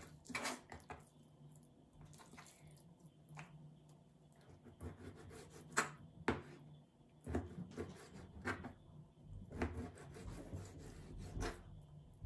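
Chef's knife slicing raw chicken breast into strips on a plastic cutting board: irregular knocks as the blade meets the board, with soft rubbing and scraping between the cuts.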